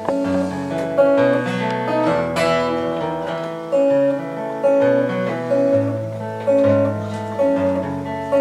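Acoustic guitar playing a strummed country intro with a moving bass line, chords changing about every second.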